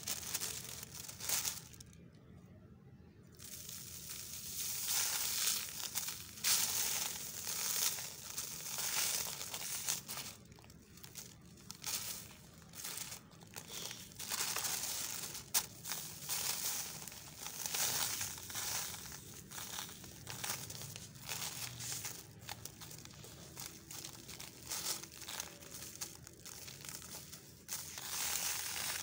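Close-miked crinkling and rustling of a thin paper sheet being handled in a plastic tub, mixed with dry sand-cement mix crumbling through fingers and trickling back onto the pile near the end. The crackling comes in uneven runs with short pauses.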